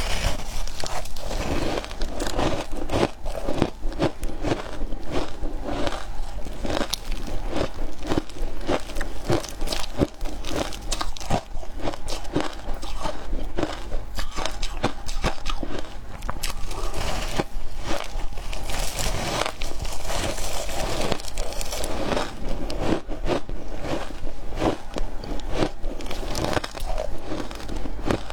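Close-up crunching and biting of shaved ice, a quick irregular run of crisp crunches that keeps going throughout, over a steady low hum.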